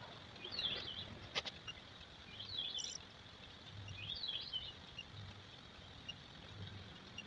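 Short bird-like chirps in quick clusters every second or two over a faint steady hiss, with one sharp click about a second and a half in.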